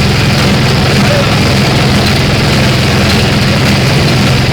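Grass chopper machine running steadily, its engine drone unbroken.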